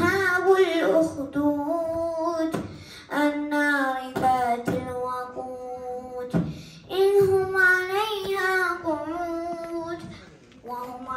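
A boy reciting the Quran in a melodic, chanted style: long held phrases with short pauses for breath between them, a new phrase starting near the end.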